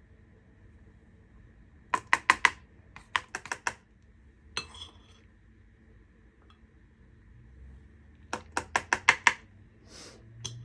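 A teaspoon tapping quickly against an ice cube tray in short bursts of rapid clicks, knocking minced garlic and ginger into the cells, with a brief scrape in between.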